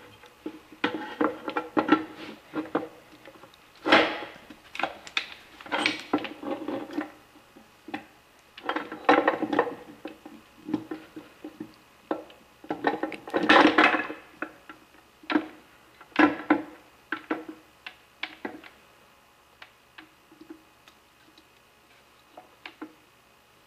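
Steel gears and synchronizer parts of a Dodge NV4500 five-speed main shaft clinking and knocking against one another and the transmission case as the assembly is worked into the case by hand. Irregular metallic clinks with short ringing come in bunches, and thin out to a few light taps near the end.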